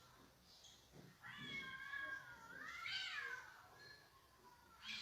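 A cat meowing: one long, drawn-out call beginning about a second in, rising in pitch near the middle and then falling away.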